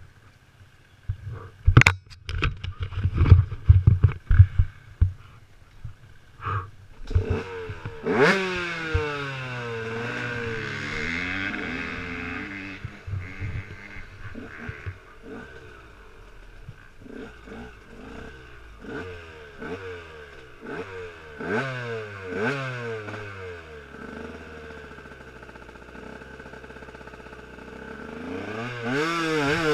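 Enduro motorcycle engine. A few seconds of sharp clattering knocks come first. Then the engine idles with repeated throttle blips, its revs rising and falling again and again, and near the end the revs climb steadily as the bike pulls away.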